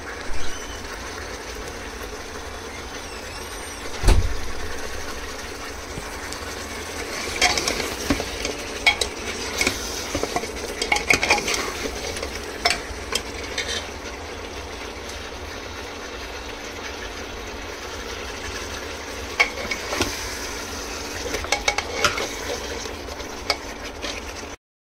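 Mutton frying in oil in a pan, a steady sizzle, with a spoon scraping and clinking against the pan in spells of stirring and one heavy knock about four seconds in. The meat is being fried down until the oil separates, not yet fully fried.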